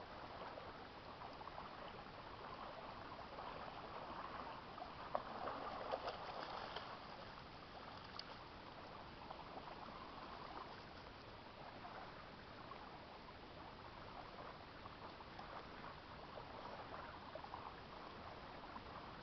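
Faint, steady lapping of small waves on a lake, with a couple of brief knocks about five and six seconds in.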